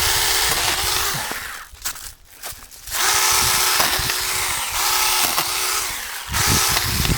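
Saker battery-powered mini-chainsaw run in two spells, its electric motor whining up to speed and winding down with each trigger pull while it cuts branches. A low rumble sets in near the end.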